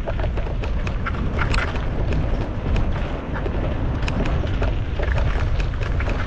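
Mountain bike rattling and clattering over a rough forest trail on a descent, with many sharp, irregular clicks. Under it runs a steady low rumble of wind buffeting the microphone.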